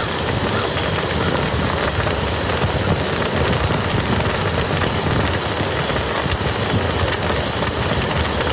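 Wood fire crackling and popping over the steady rush of a flowing river.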